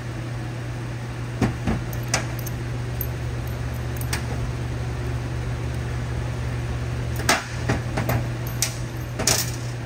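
Steady low hum under a few scattered light clicks and knocks of tools and a bolt being handled.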